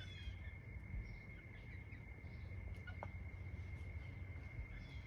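Quiet outdoor ambience in a backyard: a steady high-pitched drone, a few faint short bird chirps and a low background rumble.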